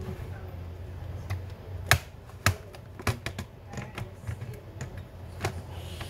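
Plastic clips of an Asus ROG Strix G laptop's bottom cover snapping as the cover is worked by hand: a series of sharp clicks, about seven spread irregularly, the loudest about two seconds in.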